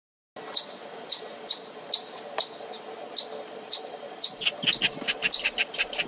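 Insect chirping, given as the call of a giant weta: short, sharp high chirps about two a second, quickening into a rapid irregular run from about four seconds in, over a steady low hum.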